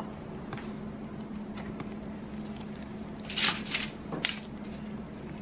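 Handling sounds of gloved hands pressing vegetable stuffing into a whole red snapper on aluminium foil: a few short rustles about three and a half seconds in and once more just after four seconds, over a steady low hum.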